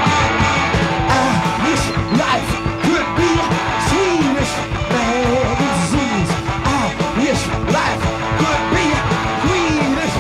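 Live punk rock band playing an instrumental passage on electric guitars, bass guitar and drums, with a part sliding up and down in pitch over the steady beat.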